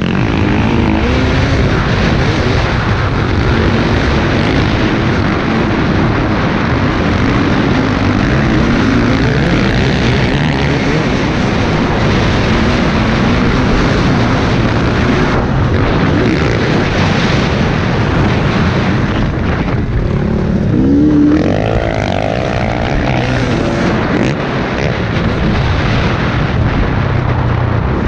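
KTM 250 EXC TPI two-stroke dirt bike engine revving up and down under load while riding a motocross track, with a quick rise in revs about three quarters of the way through. Heard from a helmet camera, with wind rushing over the microphone.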